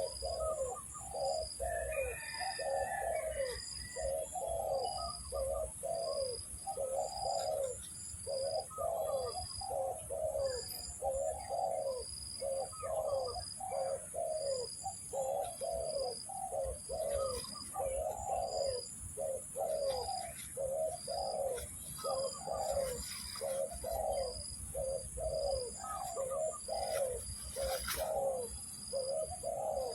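Spotted doves cooing: short low coos repeated about twice a second without a break. Above them runs a steady high-pitched whine that pulses regularly.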